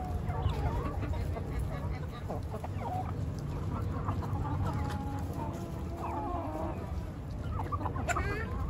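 Flock of domestic chickens, hens and roosters, clucking with many short overlapping calls while feeding on scattered kitchen scraps, over a steady low rumble.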